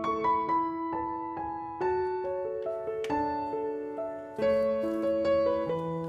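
Slow, gentle background piano music, single notes and soft chords struck one after another and left to fade.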